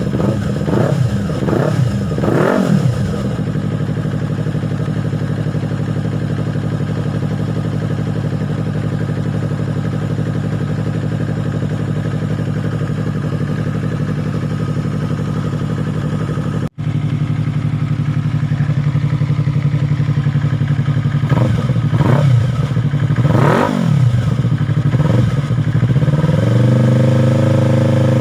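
Yamaha R3's parallel-twin engine through an Akrapovic M1 slip-on muffler with a twisted elbow and resonator. It takes a few quick throttle blips, then idles steadily, then takes more blips and holds a higher rev near the end.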